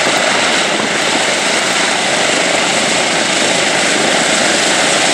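Boeing B-17 Flying Fortress taxiing, its four Wright Cyclone nine-cylinder radial engines running steadily at low power with propellers turning.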